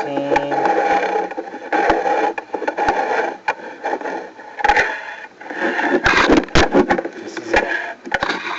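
Scraping and rubbing with scattered knocks, a cluster of them about six seconds in, as a drain inspection camera's push cable is fed through the pipe.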